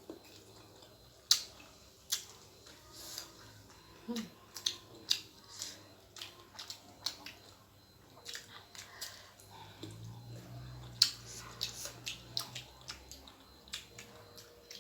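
Close-miked eating sounds: irregular wet mouth clicks and smacks of someone chewing spicy instant noodles, with a low hum for a few seconds past the middle.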